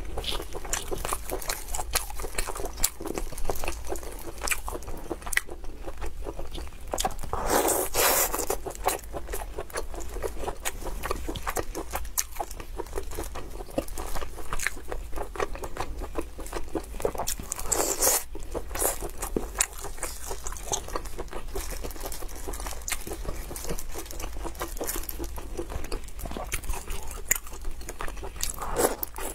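Close-miked eating of saucy braised pork intestine rings: biting and chewing heard as a steady run of small wet mouth clicks and smacks, with a few louder bites.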